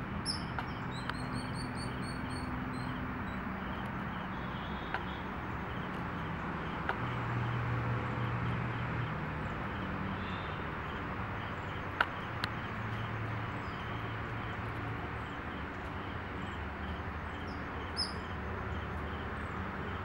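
Outdoor ambience: small birds chirping a few short high notes, mostly near the start and near the end, over a steady low hum and background noise. A single sharp click about twelve seconds in.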